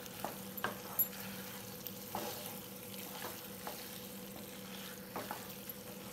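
Fusilli pasta in red gravy sizzling in a frying pan as it is stirred with a metal spoon, with a few light clicks and scrapes of the spoon against the pan.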